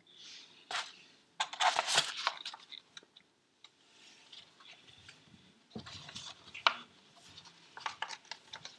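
A needle in a paper cone scratching and crackling in the groove of a 45 rpm record spinning on a potter's kick-wheel. Louder bursts of scraping come about a second and a half in, again near six seconds and again near the end, over a faint steady hiss, with no clear music coming through.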